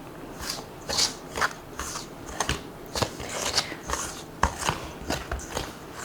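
A utensil scraping and knocking in a mixing bowl, two to three strokes a second, as it stirs a milk-and-honey mixture into flour to bring it together as graham cracker dough.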